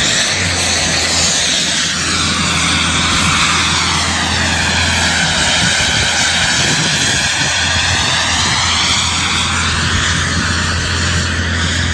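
Display aircraft's engine running loud and steady as the plane flies by, the sound sweeping in pitch as it passes.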